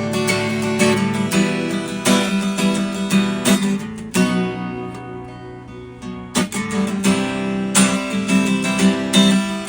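Givson semi-acoustic guitar strummed in chords. About four seconds in, one chord is left to ring and fade for roughly two seconds, then the strumming resumes.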